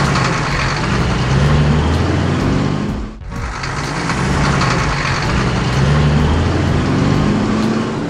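Heavy dump truck engine sound effect running and revving up, its pitch rising twice, with a brief drop about three seconds in.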